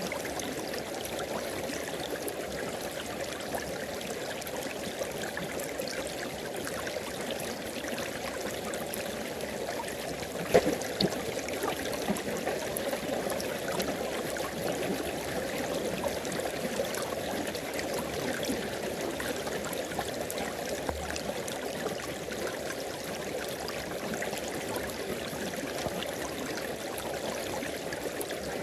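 River water flowing in a steady rush, with one short sharp knock or splash about a third of the way through.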